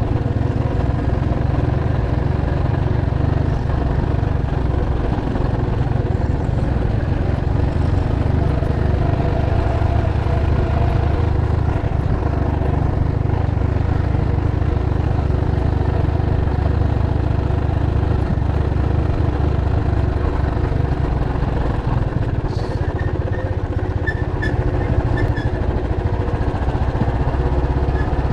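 Motorcycle engine running steadily on the move, a continuous low rumble with an even engine note.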